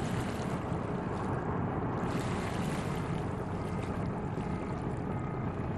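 River water washing and lapping over shoreline rocks, a steady rushing noise with wind.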